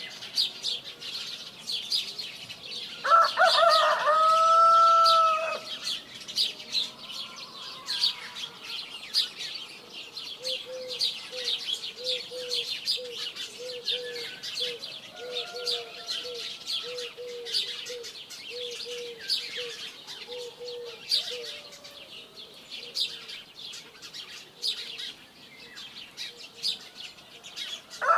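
Small birds chirping and twittering steadily, with a rooster crowing once about three seconds in. From about ten seconds in comes a run of low, evenly spaced calls, roughly one and a half a second.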